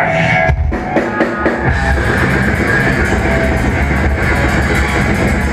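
Live extreme metal band playing loud: drum kit and distorted guitars. The first second or two are broken up by separate accented hits, then the full band drives into a fast, steady beat.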